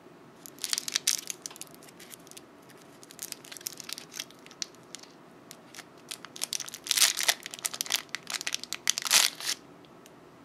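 Clear cellophane lollipop wrapper crinkling as it is handled and pulled off the candy. It comes in bouts of sharp crackling: briefly about half a second in, more lightly at about three to five seconds, and loudest in a long stretch from about six and a half to nine and a half seconds in, then stopping.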